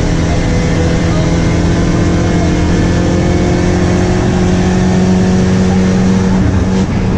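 Citroën C4 VTS rally car's 1.8-litre turbocharged engine running hard at high revs, its pitch rising slowly, with a short drop in pitch near the end, over a haze of road and wind noise.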